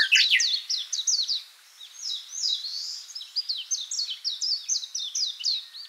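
A songbird singing: a fast run of high chirps, each sliding downward, several a second, with a short pause about two seconds in.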